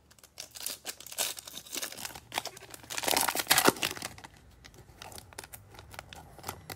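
Foil wrapper of a Panini Prizm baseball card cello pack being torn open and handled, crinkling and crackling, loudest about three seconds in.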